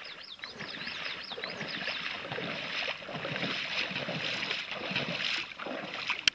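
Shallow lake water sloshing and splashing as a person wades along the muddy shore. A quick run of high chirps sounds in the first second or so, and there is a single sharp click near the end.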